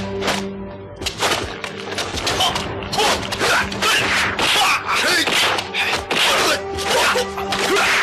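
Kung-fu fight sound effects: a fast, dense run of punch and strike impacts and swishes, starting about a second in, over dramatic background music.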